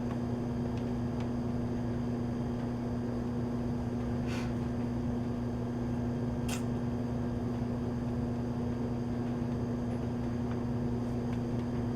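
Steady low electrical hum of running shop machinery, with two faint short clicks around the middle.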